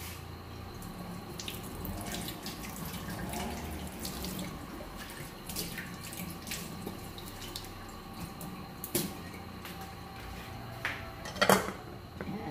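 Water running from a kitchen tap, with small clinks and knocks. Near the end a metal lid is set on a cooking pot with a loud clatter.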